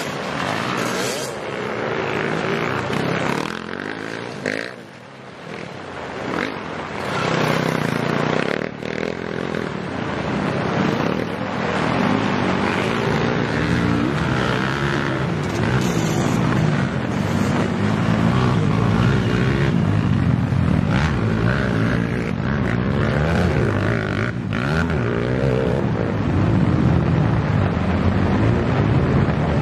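Dirt bike engines revving and rising and falling in pitch as the bikes pass. Through the second half the sound is increasingly covered by a loud, even rush of heavy rain and wind on the microphone.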